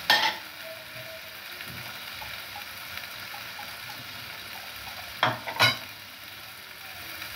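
Plates clinking as they are handled and set down on the counter: a sharp clink at the start, then two more about five seconds in. Under it runs a steady low sizzle of food frying in the pans on the stove.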